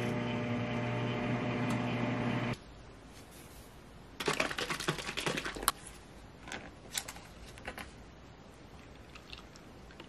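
Microwave oven running with a steady hum that cuts off abruptly about two and a half seconds in. Then comes a dense run of plastic clicks and crackles as the screw cap is twisted off a plastic bottle, followed by a few lighter clicks.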